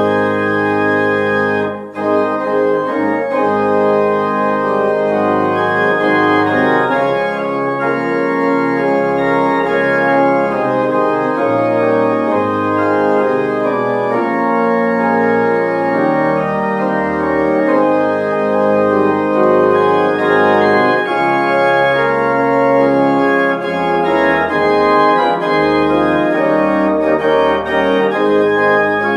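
Organ music: held chords over a bass line whose notes change every second or two.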